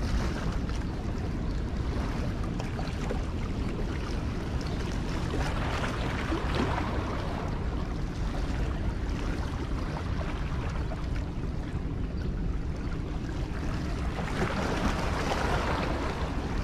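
Steady rushing noise of water flowing below the dam, with wind rumbling on the microphone.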